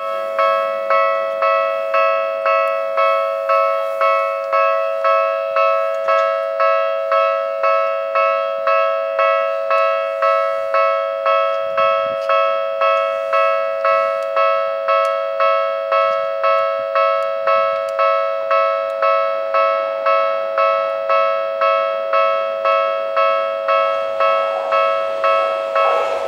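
Japanese level-crossing electronic warning bell ringing without pause, a two-tone ding repeated a little under twice a second, each strike dying away quickly: the signal that a train is approaching. Near the end the noise of the approaching train rises underneath it.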